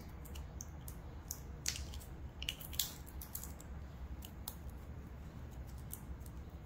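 Soft silicone sphere mold being flexed and pulled off a cured resin sphere, then the sphere handled: a scatter of faint small clicks and squishes over a steady low hum.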